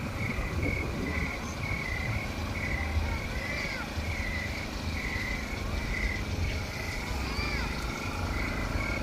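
Outdoor chorus of insects: a high call pulsing steadily about twice a second, with a few short chirps that rise and fall, over a constant low rumble.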